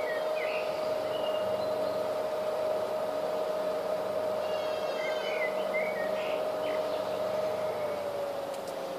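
Turnigy Reaktor 300W balance charger giving a steady whine while it charges a LiPo pack from solar panels at about 6 amps. The whine drops slightly in pitch and loudness near the end. Birds chirp now and then in the background.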